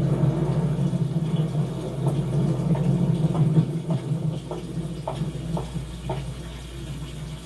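Rain with a low rumble of thunder that fades away about halfway through, and a series of light taps about twice a second in the middle of the stretch.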